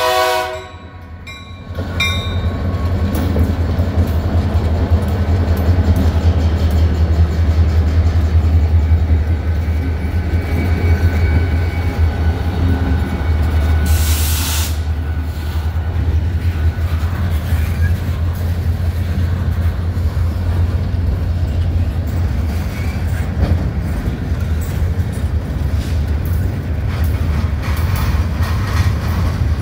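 A diesel-hauled freight train passing close by: the horn cuts off right at the start, then the locomotives go past with a deep, steady engine rumble. A brief loud hiss comes about halfway, and the rumble gives way to boxcars rolling by with the clicking and clatter of wheels on the rails.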